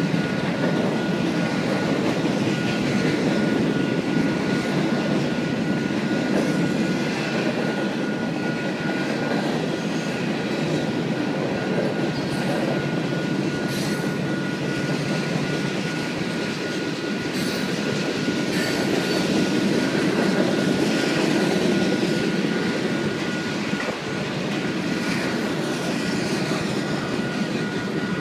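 Freight train cars rolling steadily past: a continuous rumble of steel wheels on rail with scattered clicks at the rail joints, over a thin steady high whine.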